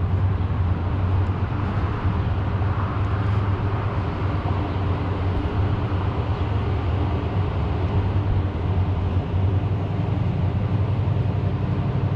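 Steady city-street ambience dominated by an even, low mechanical hum like an engine or large machinery running, with a broad noise over it and no distinct events.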